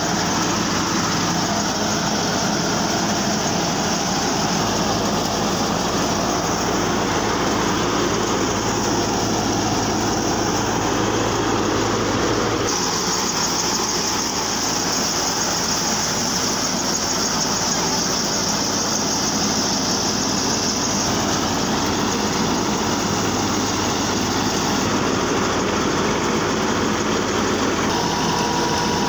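Wheat thresher and the engine driving it running steadily at constant speed: a continuous loud machine hum. Its tone shifts slightly about halfway through.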